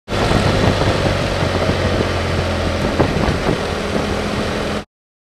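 BMW F800GS parallel-twin engine running steadily while the motorcycle is ridden, with wind and road noise over it. Starts and cuts off suddenly.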